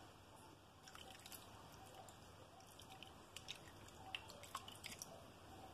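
Faint drips and small wet ticks of fresh orange juice being poured over cubes of boiled sweet potato, scattered from about a second in to near the end.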